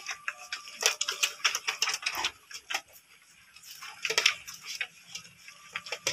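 Several Belgian Malinois puppies eating dry kibble from a steel bowl: rapid, irregular clicking and crunching as they chew and their teeth and kibble knock against the bowl.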